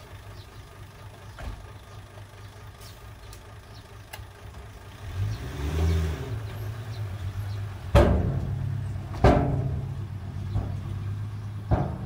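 Small dump truck's engine running, revving up and back down about halfway through. Then three loud bangs, about a second apart and again near the end, as the emptied tipper body and tailgate come down and the truck pulls away.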